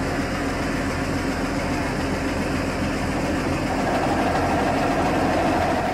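Heavy engine running steadily at idle, a low hum with a higher tone that grows stronger about four seconds in.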